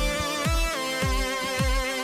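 Background electronic dance music with a steady thumping beat about twice a second under held synth chords.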